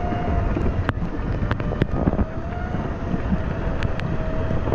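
Wind buffeting the microphone over a low rumble, with a faint steady whine and several sharp clicks.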